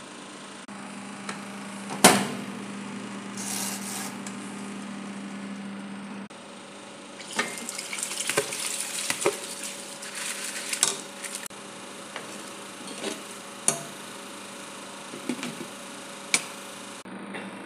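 Cooking-pot and utensil sounds: a sharp metal clank about two seconds in, then a few seconds of scraping and rustling as rice is tipped from a bowl into a pot of broth, followed by a few light knocks as a glass lid goes on the pot. A steady low hum runs underneath.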